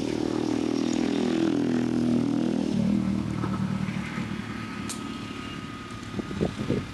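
A motor vehicle engine running past, its pitch rising and then dropping sharply about three seconds in before it fades away.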